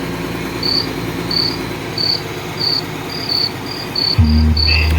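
Crickets chirping: short high chirps repeating about every half second or so, with two crickets interleaving later on, over a steady low hum. About four seconds in, a loud, steady deep bass tone comes in.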